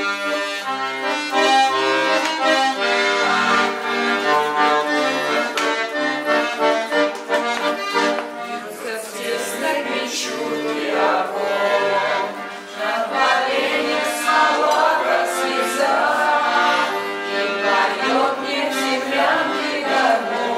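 Button accordion playing a slow wartime-style melody with chords. From about eight seconds in, a singing voice joins the accordion.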